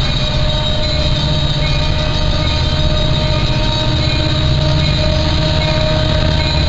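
CN freight train with its EMD diesel locomotives, heard as a loud, steady low rumble with several steady high tones running over it.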